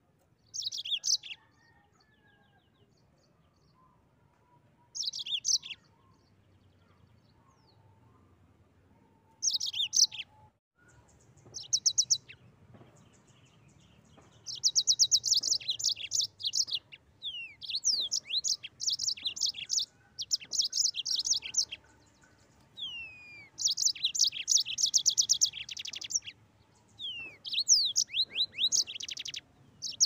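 Yellow-fronted canary singing: short bursts of rapid high trills in the first half, then from about halfway through a near-continuous rolling song of fast trills mixed with quick falling whistled notes.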